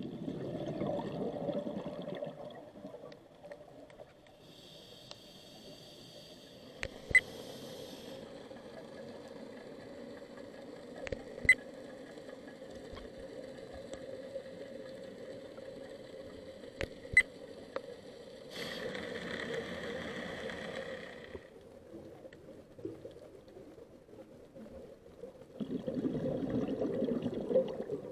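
Scuba diver breathing through a regulator, muffled through an underwater camera housing: hissing inhales alternate with surging, rumbling bursts of exhaled bubbles. A few sharp clicks cut in along the way.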